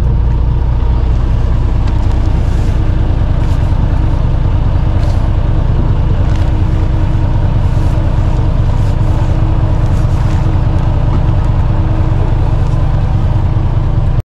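A boat engine running at a steady idle: a low, even drone with a few steady hum tones above it and no change throughout.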